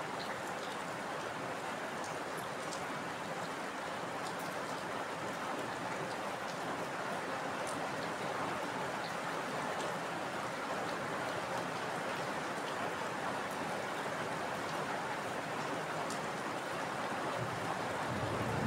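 Heavy rain falling steadily: a dense, even hiss with scattered single drop ticks. A low thunder rumble starts to build near the end.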